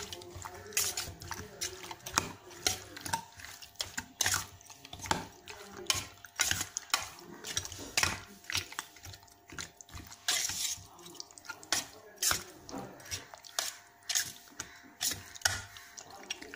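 Raw chicken pieces being mixed by hand with yogurt and spices in a stainless steel bowl: irregular wet squelches and slaps, several a second, with the odd clink against the bowl.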